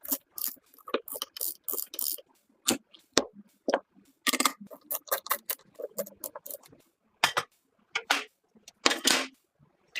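Irregular small clicks, taps and rustles of PC parts and packaging being handled by hand, in short bursts with brief pauses.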